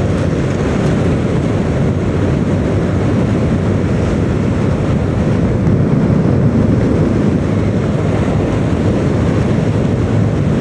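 Steady rumble of wind and road noise from a vehicle moving along a road, with wind buffeting the microphone.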